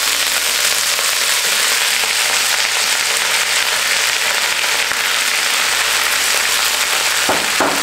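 Freshly washed red amaranth leaves hitting hot oil in a nonstick pan, setting off a loud, steady sizzle and crackle as they are tipped in and stirred with a spatula.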